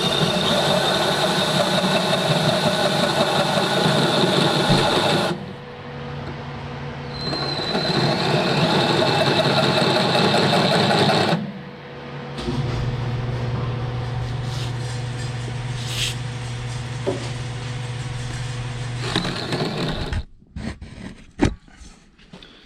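Power drill spinning a hole saw as it cuts out a hole, in two hard runs of about five and four seconds with a whine that climbs as each starts, then a steadier, lower run for about seven seconds that stops near the end, followed by a few clicks. The saw is walking around a little but cutting through.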